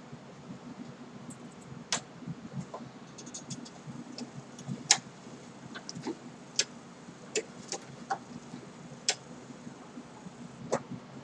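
Sharp, irregular clicks and taps, roughly one a second, over a low steady hum, from slow work at a Singer 7-34 sewing machine.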